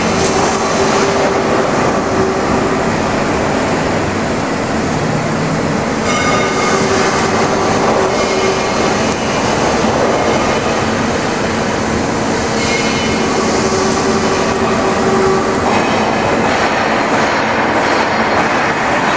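TOS MCSK 8 vertical turning lathe (carousel lathe) running: a steady mechanical rumble with a whine that swells and fades a few times.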